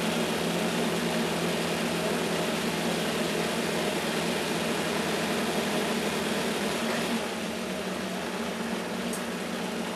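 Race-prepared Pontiac Trans Am's 700+ hp V8 running steadily at low speed, heard from inside the cockpit as the car rolls along at pit-lane pace. The engine note drops a little about seven seconds in.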